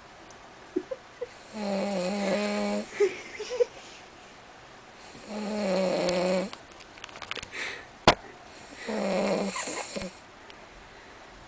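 Slow, regular snoring: three long buzzing snores about three and a half seconds apart, with a sharp click shortly before the third.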